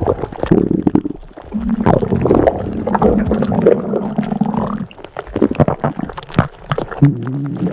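Human stomach growling: long, drawn-out rumbles with gurgles and small pops, one rumble rising in pitch near the middle, with brief lulls about a second in and near five seconds.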